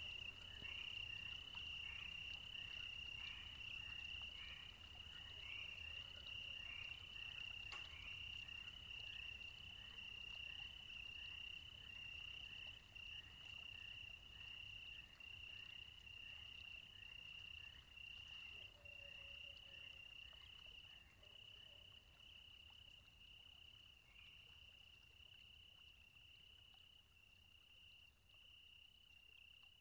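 Night chorus of crickets chirping steadily at a high pitch, with frogs calling in a quick repeated series through the first half, slowly fading out.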